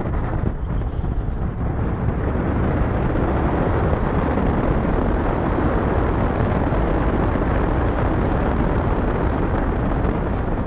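Steady, loud rumble and rush of a roller coaster ride in motion, without let-up.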